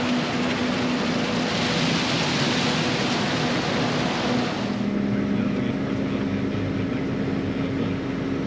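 Large farm machinery engine running steadily under a rushing noise, with a steady hum whose pitch shifts about halfway through.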